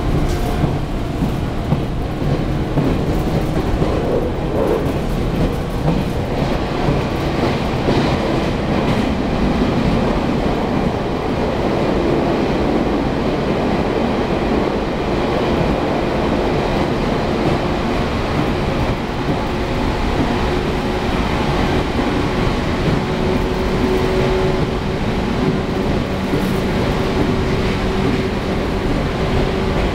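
Running noise inside an old JNR-type electric local train moving at speed: a steady rumble of wheels and running gear, through a tunnel for much of it. A steady hum joins about twelve seconds in.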